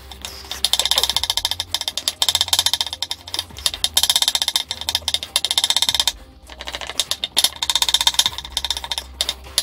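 Kitchen knife mincing garlic on a wooden cutting board: fast runs of blade taps on the wood, broken by a couple of short pauses.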